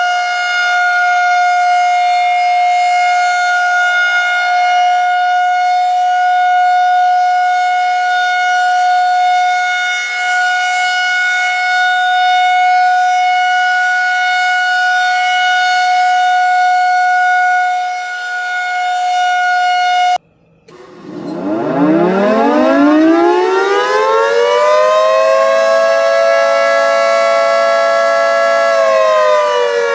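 Civil defense warning sirens. One siren holds a steady high tone for about twenty seconds and cuts off abruptly. After a brief gap, a siren winds up from a low pitch to a steady tone, holds it, and begins to wind down near the end.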